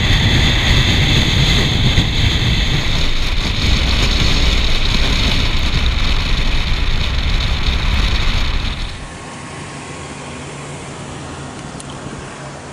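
Wind rushing over a camera mounted on the outside of a moving car, with heavy low road rumble. It cuts off abruptly about nine seconds in, leaving a much quieter steady background hum.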